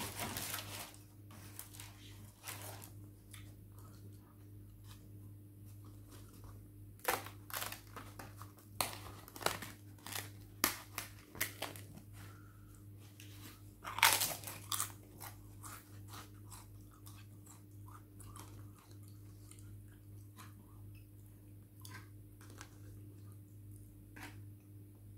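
A person biting and chewing crisp papadum close to the microphone: a run of sharp crunches, thickest in the middle and loudest about halfway through, over a steady low hum.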